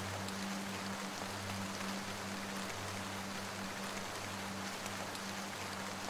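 Heavy rain falling, an even steady hiss, with a low steady hum underneath.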